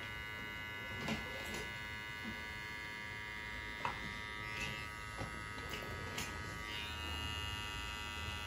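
Red cordless hair trimmer buzzing steadily as its T-blade edges the hairline around the ear and sideburn, with a few faint clicks.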